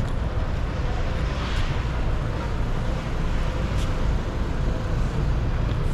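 City street ambience: a steady rumble of road traffic, with a few faint ticks.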